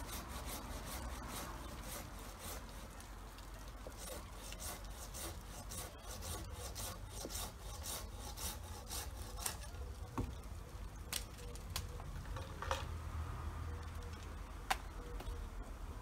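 A hand saw cutting wood in rasping strokes for about the first ten seconds, then a few sharp clicks.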